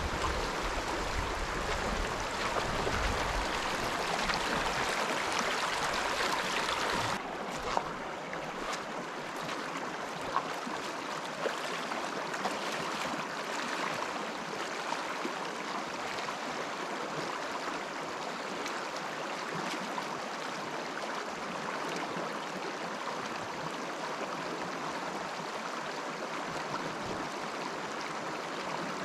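A rocky mountain stream runs over a riffle with a steady rushing hiss. About seven seconds in, the sound drops abruptly to a softer, calmer stream sound, with a few faint clicks scattered through it.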